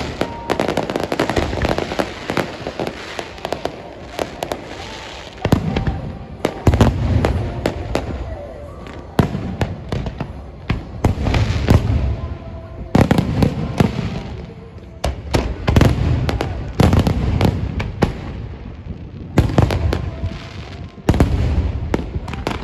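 Fireworks going off: rapid bangs and crackling bursts that come in waves every few seconds, with a low rumble under each cluster.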